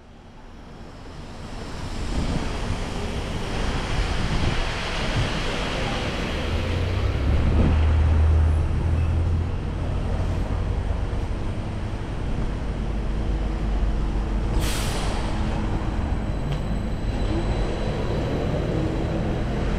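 Downtown street traffic: a steady wash of road noise, with a heavy vehicle rumbling past near the middle and a short sharp hiss, like an air-brake release, about fifteen seconds in. The sound fades in over the first two seconds.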